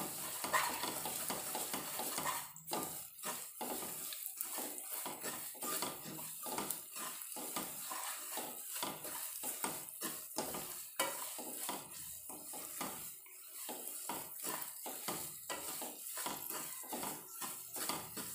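A spatula scraping and stirring semolina around a stainless steel kadhai, about two strokes a second, over a soft sizzle of ghee as the semolina and dry fruits roast.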